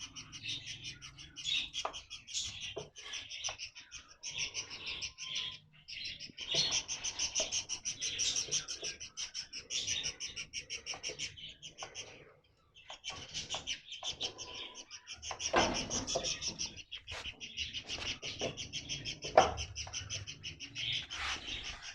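Young parrot chick calling in long runs of rapid, raspy chirps, with short pauses.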